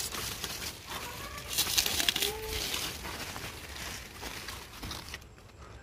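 Leaves and vines rustling in two crackly spells, with a bird giving one short, low, arched call about two seconds in.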